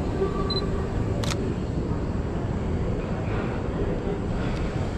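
Steady low rumble of city street traffic. About half a second in there is a short high beep, and a single sharp click follows less than a second later: a Sony A6000 mirrorless camera's focus-confirm beep and its shutter firing.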